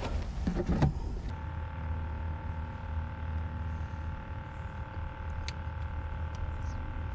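A steady motor hum over a low rumble, holding several even tones, that sets in about a second in; a single sharp click about five and a half seconds in.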